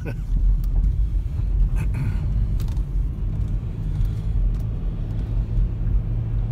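Car running on the road heard from inside the cabin: a steady low engine and road rumble, with a few faint clicks.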